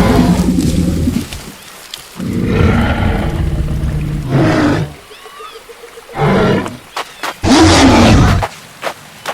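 A series of about five deep animal roars and growls, one after another, added as sound effects. The last one, near the end, dips in pitch and rises again. A few short clicks come between the later roars.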